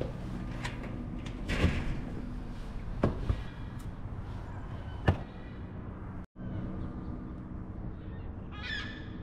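A metal security screen door being unlatched and opened, giving a few sharp clacks and knocks in the first five seconds over a steady low background hum. The sound drops out for an instant about six seconds in, and a brief high chirp comes near the end.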